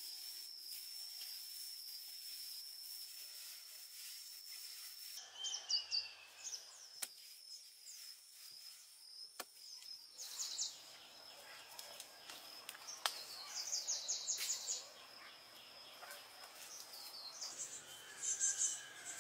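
Outdoor ambience: a steady high-pitched insect buzz for the first five seconds, then birds calling in short, rapid high trills several times, with a few sharp clicks in between.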